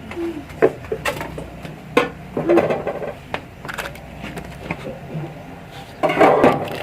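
Scattered knocks and clinks of kitchen utensils and dishes, with a longer scraping or rustling burst near the end and brief faint voices.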